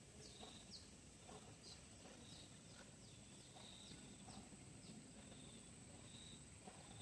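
Faint outdoor ambience of birds giving short high chirps, one or two a second, over a steady thin high-pitched tone.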